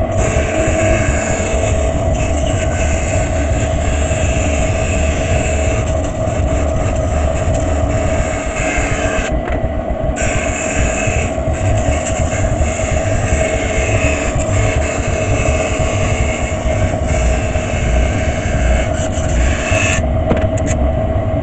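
Benchtop bandsaw running with a steady whine while its blade cuts a wooden board along a portrait outline; the sawing hiss drops out briefly about nine seconds in and again near the end, while the motor keeps running.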